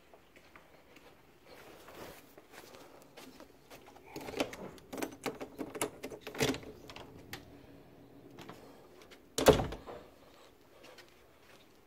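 A door being opened by its metal knob, with a run of clicks, rattles and knocks from the latch and handling, then a single loud thump near the end.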